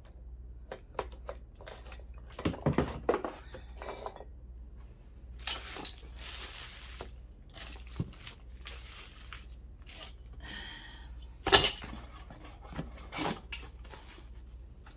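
Metal doorknobs and door hardware clinking and clanking as they are handled and set down in a cardboard box, with a stretch of rustling about six seconds in and one loud knock about eleven and a half seconds in.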